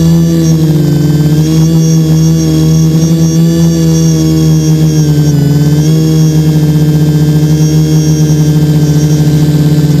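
HT-FPV quadcopter's electric motors and propellers running steadily in flight, heard loud and close from the camera mounted on the craft, a steady buzzing hum whose pitch dips slightly and recovers with throttle changes, with a faint high whine coming and going above it.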